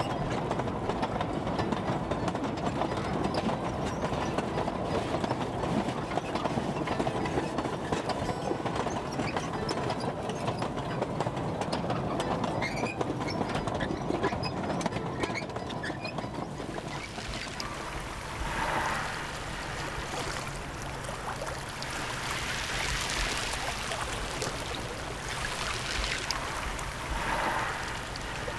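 Loaded sugar-cane wagons on a narrow-gauge cane railway rattling along the track, with many short clicks and clanks over a steady rumble. About halfway through the rattling drops away to a quieter rumble with a few short bursts of hiss.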